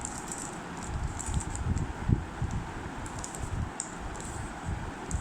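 Plastic Rubik's cube being turned layer by layer: a quick, irregular run of light clicks and clacks with soft low thumps from the hands, one thump a little louder about two seconds in.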